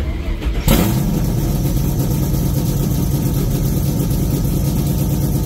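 A car engine comes in abruptly just under a second in and runs loud and steady at a constant pitch.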